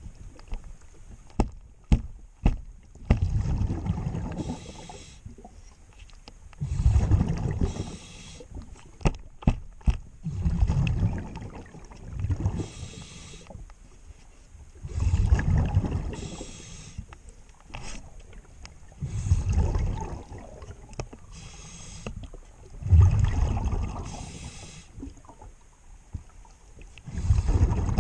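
Scuba diver breathing underwater through a regulator: a hiss on each inhale, then a gurgling rush of exhaled bubbles, repeating about every four seconds. A few sharp clicks or knocks come early on and again about nine seconds in, typical of hand work on the propeller.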